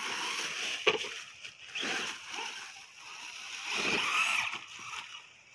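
Electric RC monster truck running in surges across a leaf-covered lawn, its tyres rustling through dry leaves, with a sharp knock about a second in.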